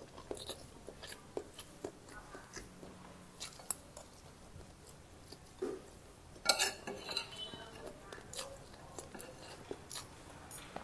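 Metal spoon and fork clinking and scraping against a ceramic plate while eating fried rice, with chewing between mouthfuls. Short scattered clinks, with the loudest clatter a little past halfway.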